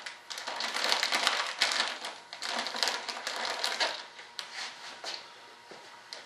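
Clear plastic vacuum-bagging film crinkling and crackling as it is handled and pressed down over a composite layup, dying away after about five seconds.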